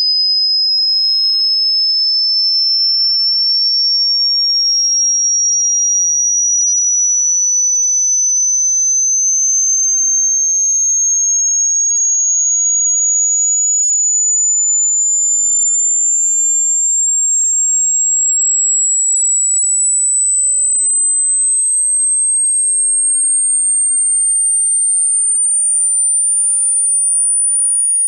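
Hearing-test sine-wave tone: a single pure, high-pitched tone sweeping slowly and steadily upward in pitch at a constant loudness.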